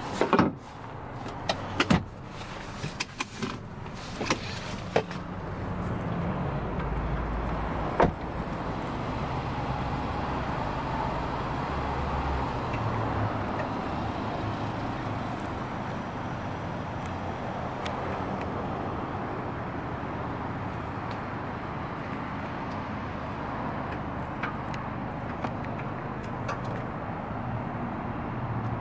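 A run of sharp clicks and knocks from handling inside a Honda CR-V's cabin, with one more loud knock about eight seconds in, then a steady outdoor background hum.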